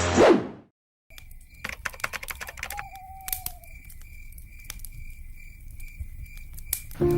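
Music ends in a falling sweep and stops, then irregular sharp clicks and taps sound over a steady, faintly pulsing high tone, with one short whistle falling in pitch about three seconds in.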